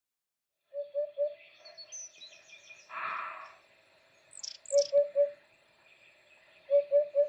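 Forest birdsong: a low three-note hooting call repeated several times, with high chirps and quick downward whistles among it, starting just under a second in after silence.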